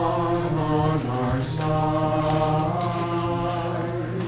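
Mixed church choir of women's and men's voices singing, with long held notes that change every second or so.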